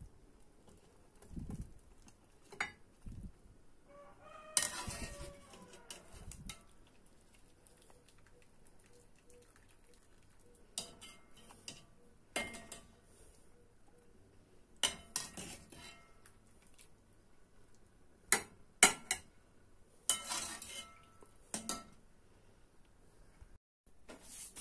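Metal wire skimmer and utensils clinking and scraping against a cooking pot and a plate in scattered, irregular knocks as boiled chicken pieces are lifted out of the broth.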